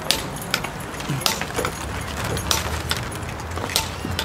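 Metal pieces of Roman-soldier costume armour and gear clinking and jangling in irregular sharp clicks as the soldiers move about, over a steady low rumble.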